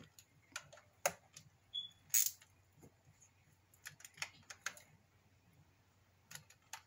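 Scattered light metallic clicks and taps from a small hand tool and the bolts of the oil filter cover plate on a 2021 CFMoto CForce 600 engine as the bolts are started and barely snugged, with a short run of quick clicks a little after the middle.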